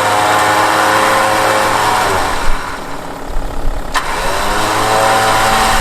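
Kings Domin8r Xtreme electric winch motor powering the drum out on test, a steady whine that stops about two seconds in. After a sharp click about four seconds in, it starts again, rising briefly in pitch as it spins up.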